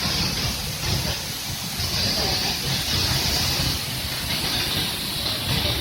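Rushing water from a waterfall: a steady noise with a low rumble and a hiss.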